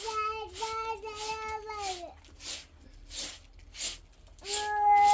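A young child's high voice holding a long, steady note that falls off and stops about two seconds in. Short breathy sounds follow, then a new long note starts near the end.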